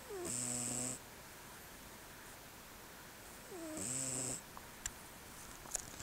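Selkirk Rex cat snoring in its sleep: two snores about three and a half seconds apart, each a short buzzing breath that dips in pitch at the start and then holds steady. A brief sharp click comes near the end.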